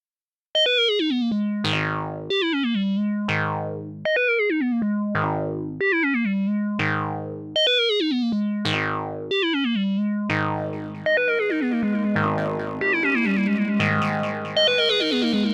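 Korg Monologue synthesizer, played through guitar effects pedals, repeating a short sequence of notes, each with a steep falling sweep in pitch or tone. About eleven seconds in, the sound thickens with overlapping repeats of the notes.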